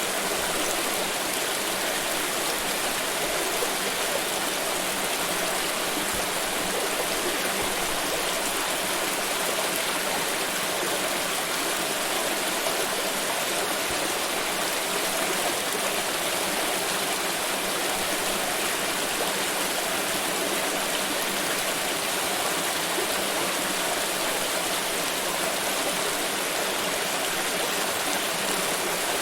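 Flowing water: a stream running steadily, an even rushing noise.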